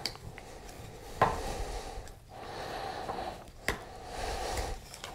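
Plastic clicks and handling noise as a mounting clip is pressed at its release indentation and worked off a Cardo Packtalk Bold intercom unit, with two sharp clicks, about a second in and near four seconds.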